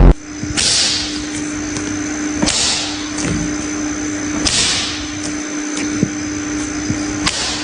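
A steady machine hum with a faint high whine, broken by a short hiss about every two seconds.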